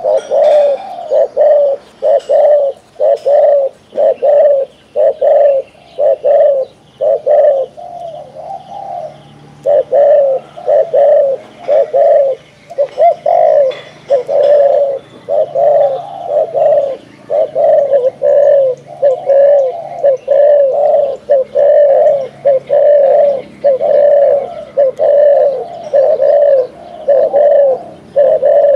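Spotted dove cooing rapidly and over and over, about two coos a second in a long run with a short pause about eight seconds in. This is the excited coo a caged dove gives on sighting a wild dove.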